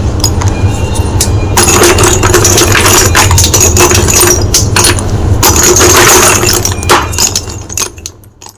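White chalk crunching loudly and close up, a dense run of irregular crackles and snaps that thins out and fades away near the end, over a steady low hum.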